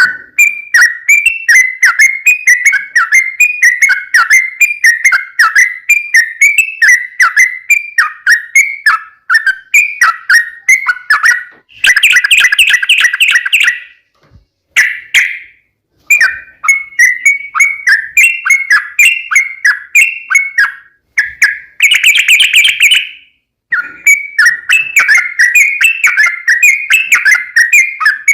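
Yellow-vented bulbul (trucukan) singing a long, rapid 'ropel' song: fast runs of bubbling whistled notes, repeated with a few brief pauses.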